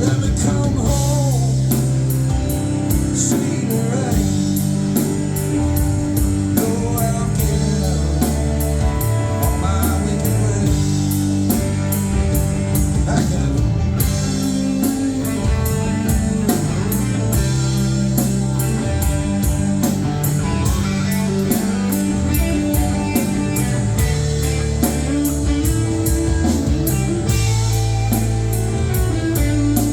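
Live alt-country band playing an instrumental break: guitar over bass and drum kit, with a steady beat on the cymbals.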